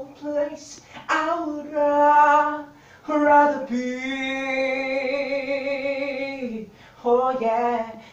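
A man singing unaccompanied in a high voice: short phrases, then a long note held for about three seconds with a slight vibrato, and a new phrase near the end.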